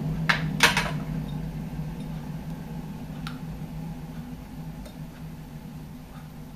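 Clatter of an amber glass medicine bottle and a plastic oral syringe being handled as a dose of anti-seizure medicine is drawn up: two sharp knocks about half a second in, then a few faint clicks, over a steady low hum that slowly fades.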